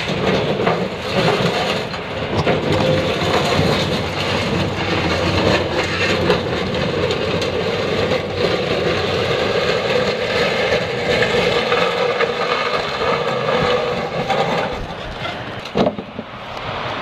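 A vehicle engine running steadily, with a brief knock near the end.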